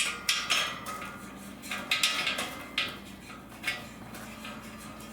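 Metal clinks and taps at an irregular pace, busier in the first two seconds and sparser after: number 10 bolts being fitted into a steel furniture frame by hand.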